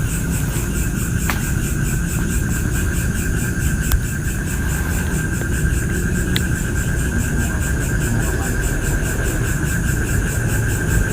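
A steady chorus of insects trilling, with a constant high whine and faster pulsing tones above it. Underneath runs a low rumble, and a few sharp clicks come through, the clearest about four seconds in.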